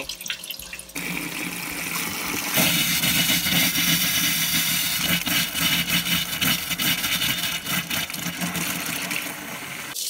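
Hot water tap running into a sink basin, splashing over a hand held under the stream. The tap comes on about a second in and runs harder from about two and a half seconds in.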